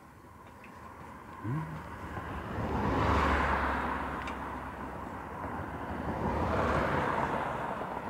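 Two road vehicles passing close by, one after the other: the first peaks about three seconds in with a low rumble under it, the second swells and fades near the end.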